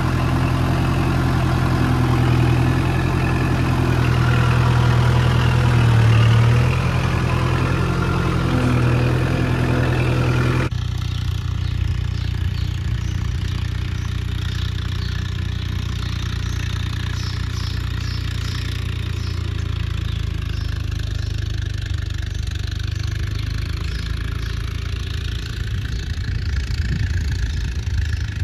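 Kubota tractor's diesel engine running steadily, heard from the driver's seat. About a third of the way in, it cuts to a quieter, more distant steady engine rumble of a second tractor pulling a land leveler across the field.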